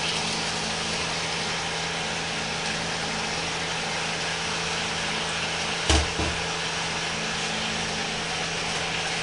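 Diced pork and onion sizzling steadily in a frying pan, over a low, steady hum. A single knock about six seconds in.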